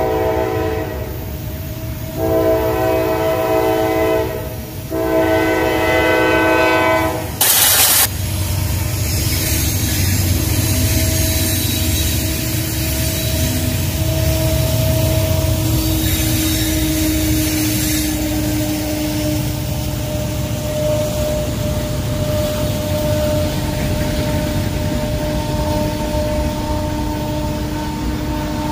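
Norfolk Southern freight locomotive's horn blowing long blasts over the first seven seconds or so. A brief loud rush of noise follows, then the freight train rolls past with a steady low rumble of wheels on rail.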